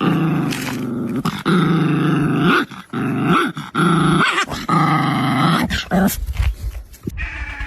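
A dog vocalizing in a string of loud, drawn-out pitched calls, most about a second long, some sliding up and down in pitch.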